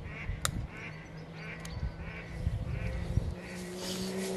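Ducks quacking repeatedly, about two calls a second, over a steady low hum. A sharp click sounds about half a second in.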